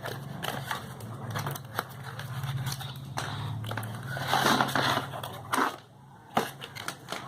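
Product packaging being opened by hand: rustling and crinkling with scattered clicks and taps. A low hum runs underneath and fades out about five seconds in.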